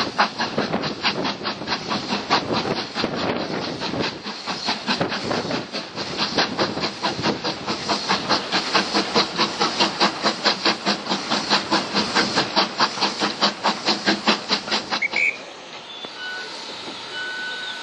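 LMS Stanier Black Five 4-6-0 steam locomotive chuffing in fast, even beats, heard from the carriage window with the train running along the rails. About fifteen seconds in the beats stop abruptly as steam is shut off, leaving the train rolling with a steady hiss and a few brief faint squeaks.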